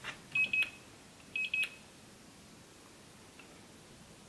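Handheld infrared thermometer beeping as it takes a reading of a lithium-ion cell's temperature: two short bursts of rapid high beeps about a second apart.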